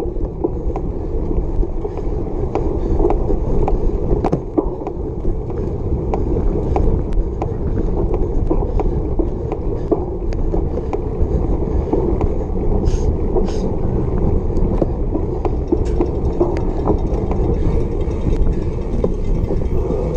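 Cyclocross bike riding fast over bumpy grass: a steady rolling rumble from the knobby tyres, with frequent clicks and rattles from the bike over the bumps.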